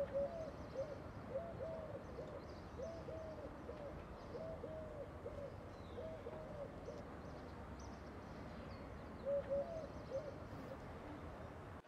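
A dove cooing, faint, in short rising-and-falling coos that come in groups of two to four, repeated over a quiet room background, with a pause of a few seconds in the middle.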